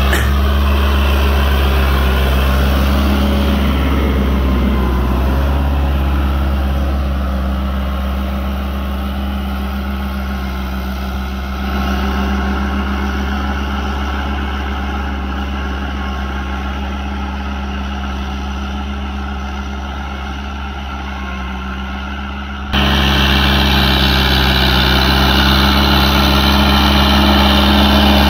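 Fiat 640 DT tractor's four-cylinder diesel engine running steadily under load while pulling a reversible plough through the soil. The sound steps abruptly in level twice, about 12 and 23 seconds in.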